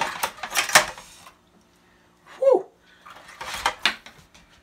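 Hot trussing wire being worked off a roasted chicken on a metal rack in a roasting pan: metal clinks and rattles in the first second and again around three and a half seconds in. About two and a half seconds in there is a short falling squeal.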